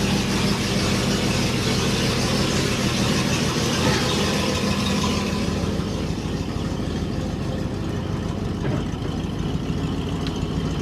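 1963 Oldsmobile 98's 394 V8 idling steadily on fresh oil, with oil pressure up. A high hiss over the engine eases about halfway through.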